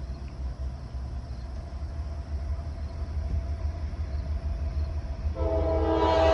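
An approaching train's low rumble grows louder. About five seconds in, the locomotive's air horn starts sounding, a chord of several steady tones.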